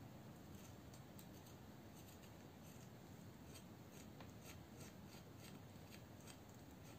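Faint, light scraping of a pruning-shear blade shaving the bark off a climbing rose cutting, a series of short scratches two or three a second.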